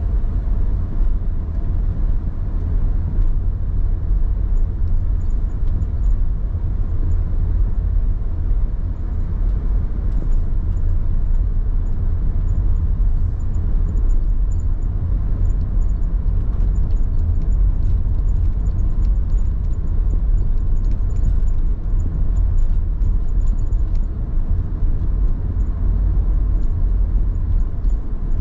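Car cabin noise while driving: a steady low rumble of tyres on the road and the engine.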